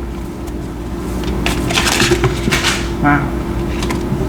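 Tarot cards being handled and shuffled: papery rustling and flicking for about a second and a half, starting about a second in, over a steady low hum.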